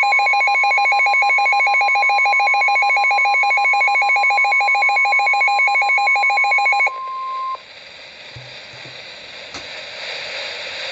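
NOAA Weather Radio receiver sounding an alert: a steady 1050 Hz warning tone together with a rapid warbling alarm beep, signalling an incoming severe weather warning. The warbling stops about seven seconds in and the steady tone half a second later, leaving radio static hiss.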